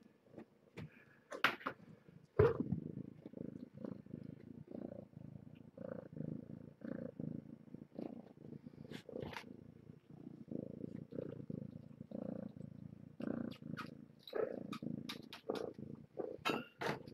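A kitten purring close to the microphone, a low rumble that swells and fades with each breath. About two seconds in, a sharp thump as a kitten bumps the camera, with a few faint clicks.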